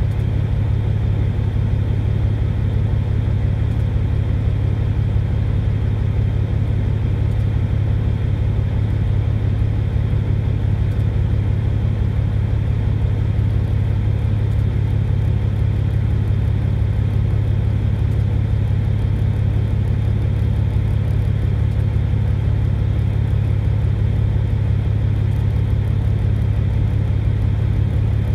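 Semi truck's diesel engine idling steadily, heard from inside the cab: a constant low drone that does not change.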